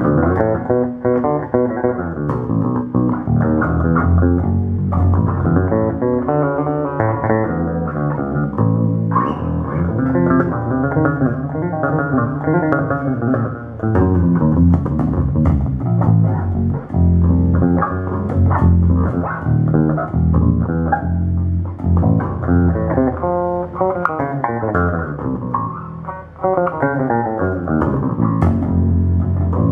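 Electric bass guitar played through a Gallien-Krueger 200MB 1×12 bass combo amplifier: a continuous run of plucked notes, some of them sliding in pitch.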